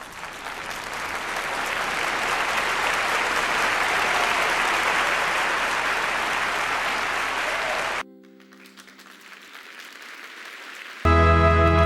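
Large indoor crowd applauding and cheering, swelling over the first couple of seconds and holding steady, then cut off abruptly about eight seconds in. Quiet held musical tones follow, and a loud sustained musical chord comes in near the end.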